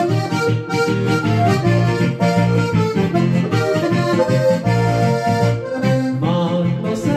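Diatonic button accordion (Slovenian frajtonarica) playing a folk tune, the melody over its own bass-and-chord accompaniment. Near the end a man's singing voice comes in.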